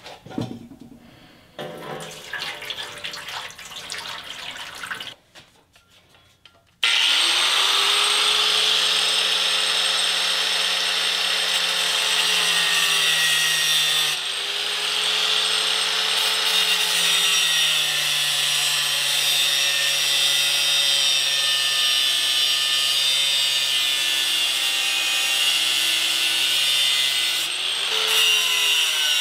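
Water poured from a jug into a metal pan, then an angle grinder starts abruptly about seven seconds in and cuts steadily through a steel circular saw blade submerged at its lower edge in water, its pitch sagging slightly as the disc bites.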